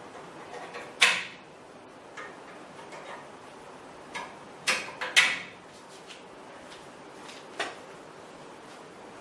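Sharp clicks and knocks of black plastic brackets being pressed onto aluminium extrusion uprights by hand: one about a second in, three close together around four to five seconds, and a last one near eight seconds.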